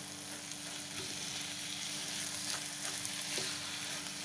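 Vegetables sizzling in oil in a nonstick pan while a spatula stirs and scrapes through the cabbage and peas, the stirring getting a little louder about a second in.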